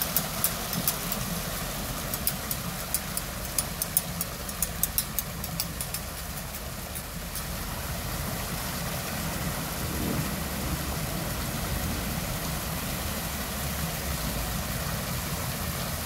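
Water wall fountain running: sheets of water pouring from several spillway blades into a tiled pool, a steady splashing rush over a low hum. A quick run of sharp ticks sounds through about the first six seconds, then stops.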